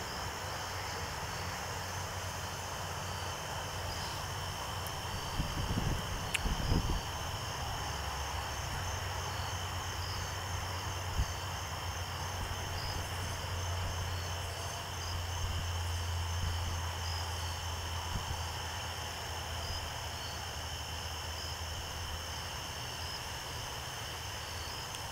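Evening chorus of insects chirping steadily at several high pitches at once, over a low steady hum. A few low bumps come about six seconds in.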